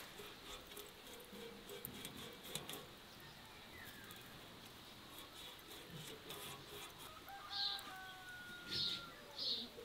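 Small birds chirping: three short high chirps near the end, with a thin whistled note just before them. Faint scattered clicks and ticks in the first few seconds.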